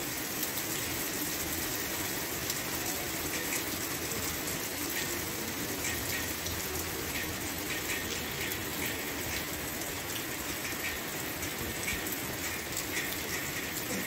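Steady rain falling on wet stone paving: an even hiss with many single drops ticking through it.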